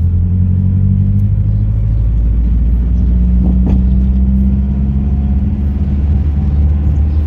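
A car's engine and road noise heard from inside the cabin while driving at a steady speed: a loud, steady low drone.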